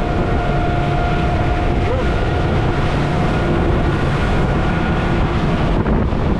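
Twin Suzuki DF200APX four-stroke outboards running the boat at speed, a steady loud drone with a thin constant whine on top.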